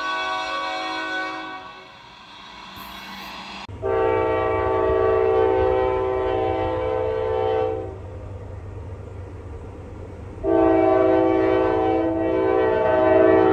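Diesel freight locomotive air horn sounding two long blasts over a steady low rumble of the train. The first blast starts about four seconds in and lasts about four seconds; the second starts about three seconds after it ends. Before the horn, a chime fades out.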